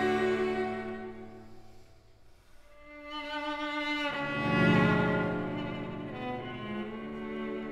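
String sextet of two violins, two violas and two cellos playing. A held chord fades almost to nothing about two seconds in. The strings then swell back in to a strong low chord, with the cellos prominent, about four seconds in, and it slowly eases off.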